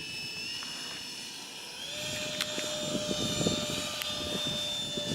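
Electric ducted-fan RC jet in flight: a steady high whine that steps up in pitch about two seconds in, holds, and drops back near the end.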